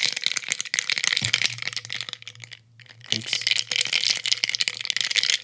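Glass mason jar of coffee shaken close to the microphone as ASMR: fast, dense rattling and clinking against the glass, with a brief pause a little past the middle.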